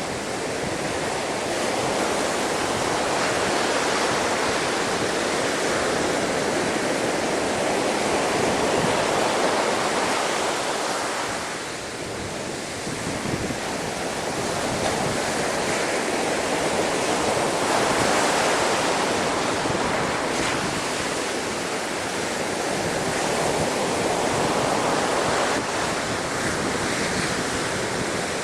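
Hurricane-driven storm waves surging and breaking against a sea wall at high tide, with wind buffeting the microphone. The rushing noise swells and eases in long surges, dropping off briefly about twelve seconds in.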